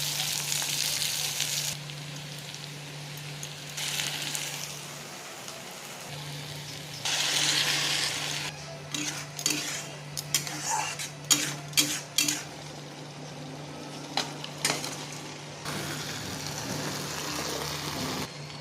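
Food sizzling in a hot pan in spells that come and go. A spoon or spatula clinks and scrapes against the pan in a quick run of strokes around the middle, over a steady low hum.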